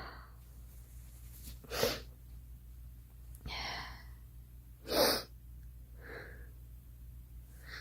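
A girl sneezing: a short sneeze about two seconds in, then a drawn-in breath and a second, louder sneeze about five seconds in, followed by fainter breaths.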